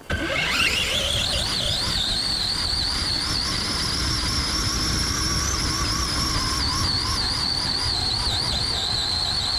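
Redcat Volcano EPX RC monster truck's brushed electric motor and gears whining at speed. The whine rises in pitch over the first second and a half as the truck accelerates, then holds high with a wavering pitch, over a low rumble. The motor is overvolted on a 3S battery, beyond its 2S rating.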